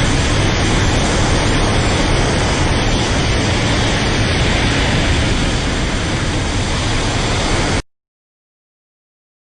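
Kaiju atomic-breath sound effect: a loud, steady rushing roar of noise with no clear pitch that cuts off abruptly almost eight seconds in, leaving dead silence.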